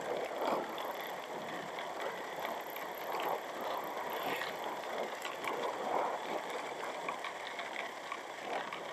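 Steady rush of wind and road noise from riding a Honda Vario scooter along a paved road.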